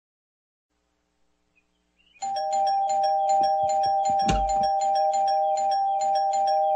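Cartoon doorbell rung over and over without letup. It starts about two seconds in as a rapid string of chimes, four or five a second, over a steady two-note ringing. A low thump comes about halfway through.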